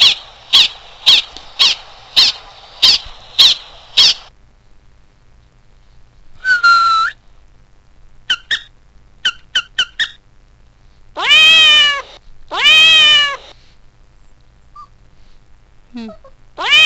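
Dog sounds played from a phone app. First comes a quick run of about eight high yips, two a second. Then a short whine, a few quick chirps, and three drawn-out whining calls that rise and fall.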